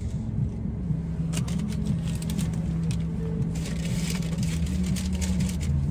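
Car engine running, heard from inside the cabin as a steady low hum that shifts slightly in pitch, with brief scratchy noises about one and a half and four seconds in.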